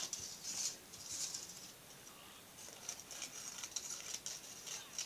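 Aluminium foil rustling and crinkling in irregular bursts, with short clicks, as strips of foil are cut and handled.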